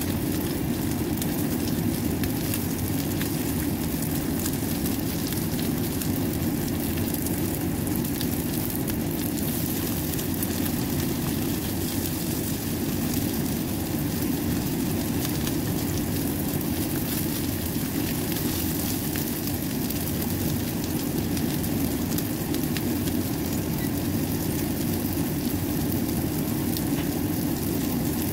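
Whitebait patties sizzling in oil in a nonstick frying pan: a steady hiss with fine crackles, over a steady low rumble.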